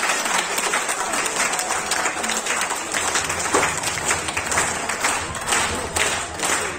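Outdoor audience applauding, the clapping falling into a steady rhythm of about three claps a second near the end.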